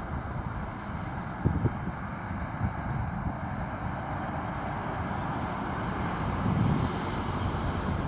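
1950 Chevrolet 3100 pickup's straight-six engine running as the truck drives slowly toward the microphone, getting a little louder as it nears.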